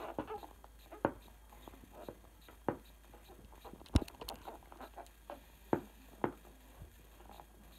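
A skateboard on a hard wood-look floor, with scattered sharp knocks and clicks as its wheels tap back down while the rider tries to hold a wheelie; the loudest knock comes about four seconds in.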